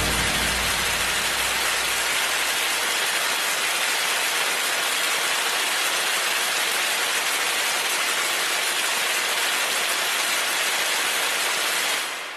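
A steady, even rushing hiss at a constant level, fading out near the end.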